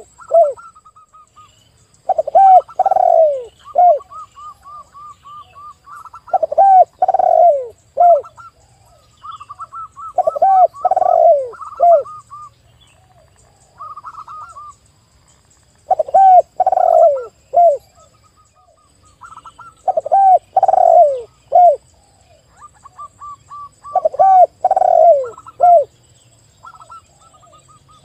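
A spotted dove cooing its song, a loud phrase of four or five arching coos that repeats about every four seconds. Between the phrases, a zebra dove gives quicker, higher runs of short coos.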